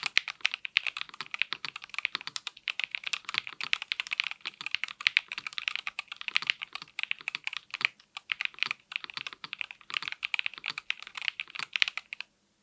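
Fast, continuous typing on a NuPhy Field75 HE magnetic-switch keyboard with Gateron magnetic white switches: a dense, irregular stream of key clicks that stops abruptly near the end.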